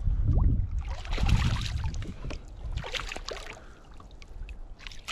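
Small hooked bass splashing and thrashing at the surface beside a kayak as it is reeled in and grabbed by hand, in bursts over the first two seconds and again about three seconds in, over a low rumble.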